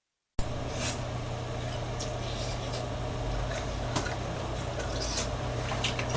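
Malfunctioning microphone cutting in suddenly with a pop about half a second in, then giving a steady low electrical buzz and hiss with scattered clicks and crackles: the mic is faulty.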